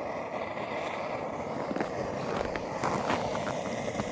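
A pot of water at a rolling boil over a flame, a steady rushing sound with a few small pops and ticks in the second half.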